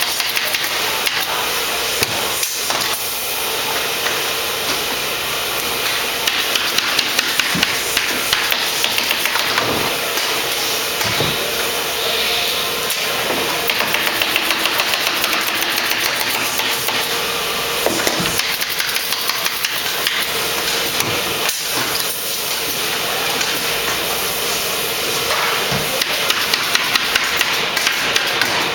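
Pneumatic staple gun firing staples in several quick runs, fastening canvas to a wooden stretcher frame, over a steady hiss of shop noise with a few single knocks.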